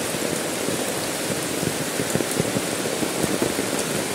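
Heavy rain falling steadily, with dense close drops pattering on an umbrella canopy overhead.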